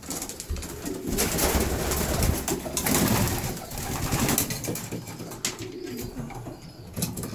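Racing pigeons cooing in a loft, low repeated coos, with scattered clicks and rustles.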